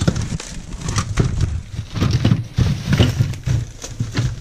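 A plastic shopping bag rustling and crinkling in quick irregular crackles as it is handled and rummaged through.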